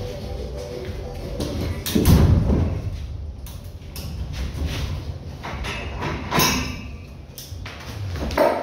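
A cargo ratchet strap is released and pulled free from the E-track rail of an empty trailer. There is a heavy thud about two seconds in and a sharp metallic clank with some ringing about six and a half seconds in, among smaller knocks and boot steps on the hollow wooden floor.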